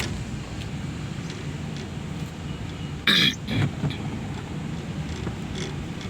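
Steady low rumble of a car on the road; about three seconds in, a person gives one sharp cough followed by a short throat-clear.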